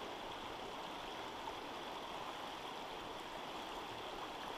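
Small river running over rocks: a steady rush of flowing water.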